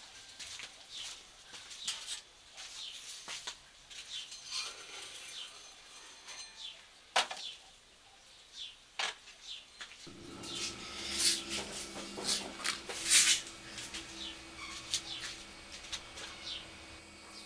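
Light knocks and scrapes of clay and tools being handled, then a pointed wooden tool scraping across the surface of a clay pot in quick strokes. A steady low hum comes in about ten seconds in.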